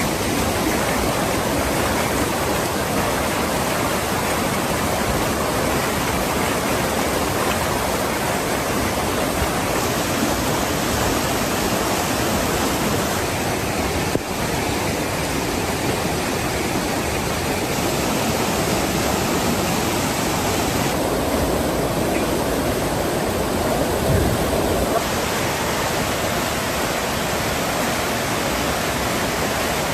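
Floodwater from a burst water main rushing in a steady, loud roar. Its tone shifts slightly every several seconds.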